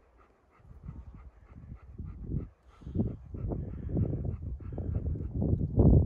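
Bernese Mountain Dog panting in a quick, even rhythm of about four or five breaths a second. A low buffeting rumble comes in about halfway through and grows louder toward the end.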